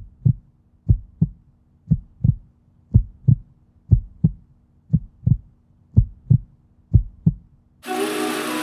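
Heartbeat sound: paired low thumps, a lub-dub about once a second, eight times over. Music starts near the end.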